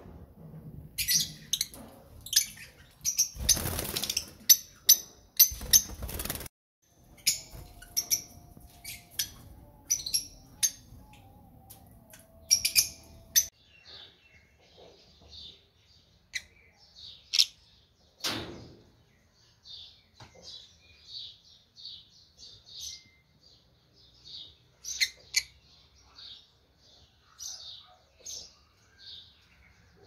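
Caged lovebirds chirping: a run of short, high-pitched chirps, with a few loud rustling noises in the first six seconds.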